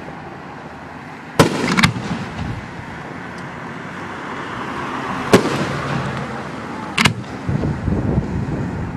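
Aerial fireworks bursting: three sharp bangs a few seconds apart, the first followed by a brief crackle, with a rumble of echo and crowd noise between them.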